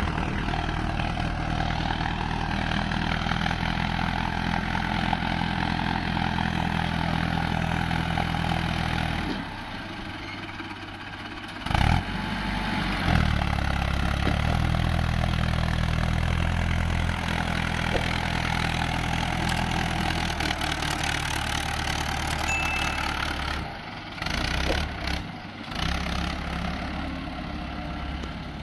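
Tractor diesel engine running steadily under load while hauling a trailer full of mud. The engine note drops away for a couple of seconds about ten seconds in. A couple of sharp knocks come soon after, and the sound dips unevenly near the end.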